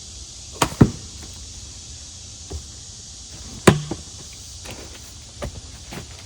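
Sharp knocks of a pickaroon's steel head striking into log rounds as they are pulled and moved: a quick pair about two-thirds of a second in, the loudest near four seconds, and a few lighter ones after.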